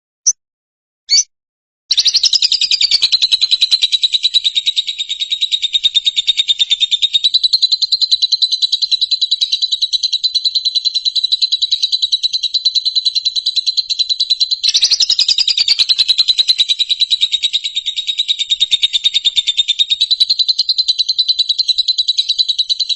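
Songbird giving a few short chirps, then a long, very fast trill that runs on without pause, its pitch wavering slightly. This is playback audio used to train caged songbirds.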